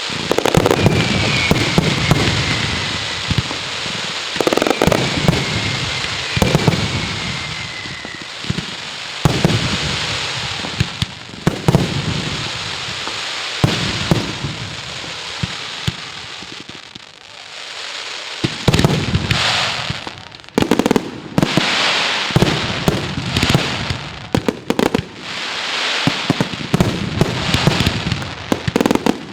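Daylight fireworks display: a dense run of bangs and shell bursts with crackling between them. A few short falling whistles sound in the first several seconds.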